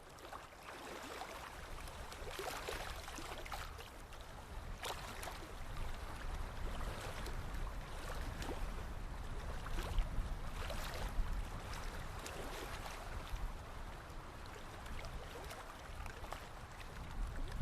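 Forest river flowing, water gurgling and splashing irregularly over a steady rush, with a low rumble underneath.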